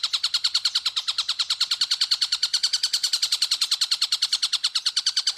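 A bird call repeated as a fast, steady train of sharp chirps, about ten a second, with no pause: a masteran recording for training songbirds.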